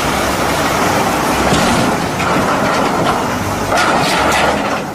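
Loud, steady rumbling and rattling vehicle noise, like a train running on rails, with a low hum beneath it. It starts and stops abruptly, like an added sound effect.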